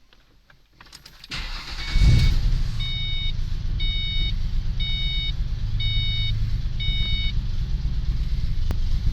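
2005 Ford Mustang's 4.0L V6 starting: a few clicks, then the engine catches with a surge about two seconds in and settles into a steady idle, which the owner calls rough and has not managed to cure. A car warning chime beeps five times, about once a second, over the idle.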